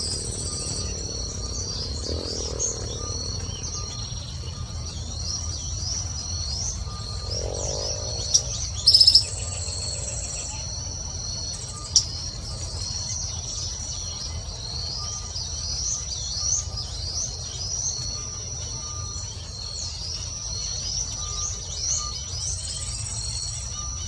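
Tropical forest ambience: a steady high-pitched insect drone under many short, rising chirps from small birds, with a louder brief call about nine seconds in and a sharp click near the twelve-second mark.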